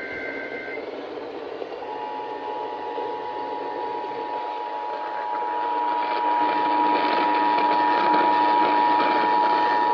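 Emergency Alert System broadcast: the last burst of the digital header's data tones ends just under a second in. About two seconds in, the steady two-tone EAS attention signal starts and sounds on without a break, announcing a severe thunderstorm warning. All of it carries a constant radio hiss.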